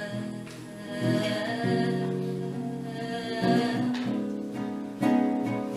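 A woman singing long held notes over acoustic guitar, in a live song performance.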